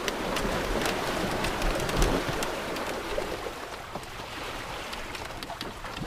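Steady rushing and splashing water with scattered sharp ticks and drips through it.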